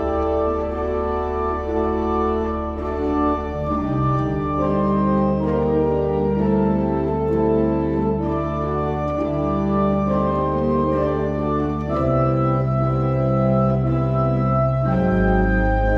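Organ music: slow sustained chords over long held bass notes, the bass note changing about four seconds in and again near the end.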